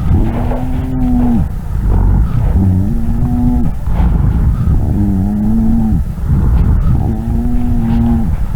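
Lung sounds recorded through a stethoscope: a low-pitched continuous adventitious sound (rhonchi) with each breath, four times, each about a second long, over a low rumbling breath noise.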